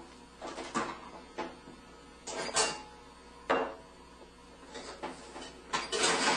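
Dishes clinking and cupboard doors knocking as a dishwasher is unloaded and the dishes are put away: a string of separate clunks, about eight in six seconds, the loudest near the end.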